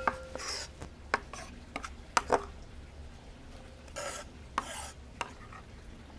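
Chopped vegetables being swept off a wooden cutting board into a glass mixing bowl: scattered light clicks and taps, with a couple of short rustling swishes about four and five seconds in.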